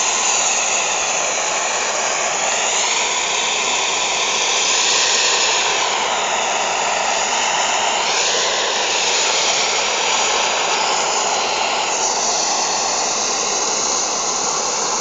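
Hot-air balloon's propane burner firing in one long continuous blast, a loud steady rushing noise without a pitched engine note.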